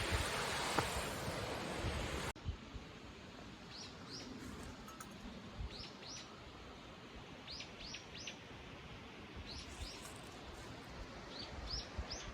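A steady rushing noise cuts off abruptly about two seconds in. Then, over a quiet outdoor background, a small bird repeats short, high chirps in twos and threes every second or two.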